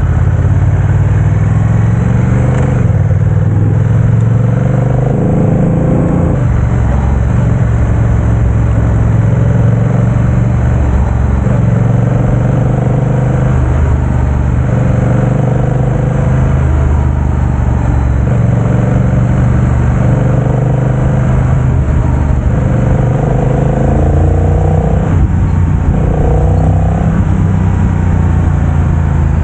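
270-degree-crank parallel-twin motorcycle engine running with its revs rising and falling again and again, a throttle blip every few seconds over a steady low rumble.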